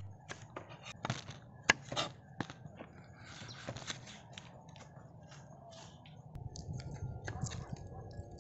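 Kitchen knife slicing a red chili pepper against a wooden chopping block: a quick, irregular run of knocks and crisp cuts, with one louder knock just under two seconds in. It goes quieter midway, and lighter clicks follow near the end.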